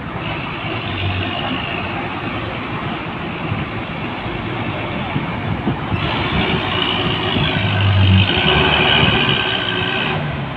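Heavy truck's engine running as it drives slowly through shallow floodwater, coming closer and growing louder from about six seconds in, loudest near the end.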